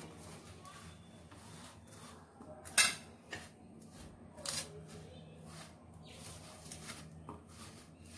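A hand rubs and tosses boiled colocasia pieces in a dry spice-and-flour coating on a stainless steel plate, making soft rubbing and scraping sounds. There is a sharp clink against the steel plate about three seconds in, and a smaller one about a second and a half later.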